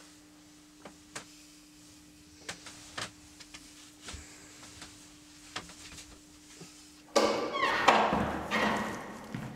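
A few soft knocks and taps over a steady low hum, then a sudden loud noisy sound about seven seconds in that fades away over the next two seconds.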